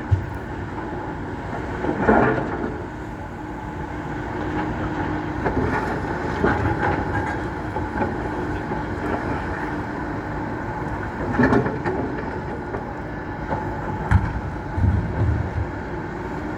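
Excavator diesel engine running steadily, with a few heavy knocks spread through it as rocks are dropped and hit the ground.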